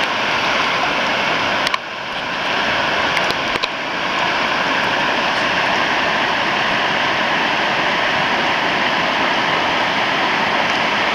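Whitewater river rapids rushing steadily, with a few short clicks in the first four seconds.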